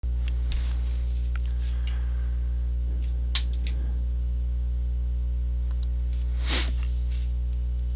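Steady electrical mains hum with a stack of even overtones, picked up by the recording. A few soft clicks sound over it, the sharpest a little before the middle, and there is a brief rustle past the middle.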